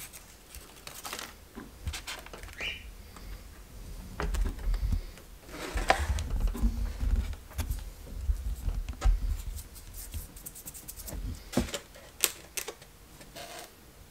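Handling noise from a foam board box lid being cleaned of excess hot glue along its seams: scattered light clicks, scrapes and soft knocks, with a few dull low bumps in the middle.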